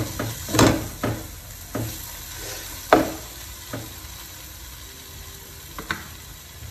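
Wooden spatula stirring and scraping thick tomato-onion masala around a nonstick frying pan over a low, steady sizzle. There are several strokes in the first four seconds, the loudest about three seconds in. After that mostly the sizzle remains, with one last scrape about six seconds in.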